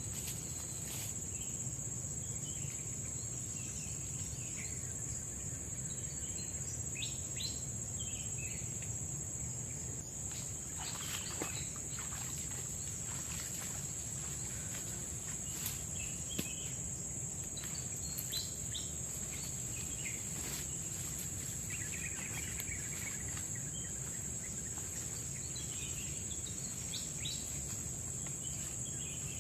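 Tropical forest ambience: insects keep up a steady, high-pitched drone, with scattered short bird chirps and a brief trill over it.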